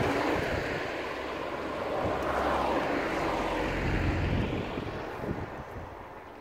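A motor vehicle driving past on the road: its engine and tyre noise swells about two seconds in and fades away after about five seconds.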